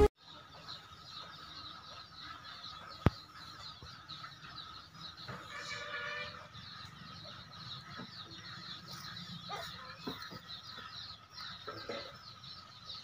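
Small birds chirping steadily in the background, with a chicken's call about six seconds in. A single sharp click about three seconds in is the loudest sound.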